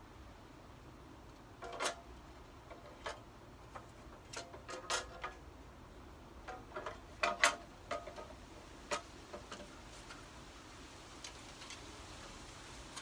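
Irregular light clicks and taps of the third brake light and license plate bracket parts being handled. The clicks are loudest about seven seconds in.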